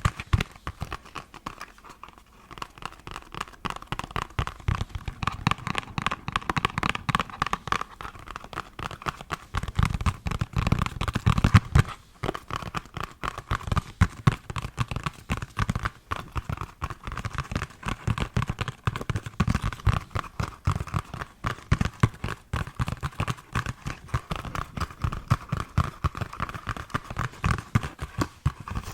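ASMR tapping on a hard object: a fast, continuous stream of light taps over a faint ringing tone from the object, with heavier, deeper taps around ten to twelve seconds in.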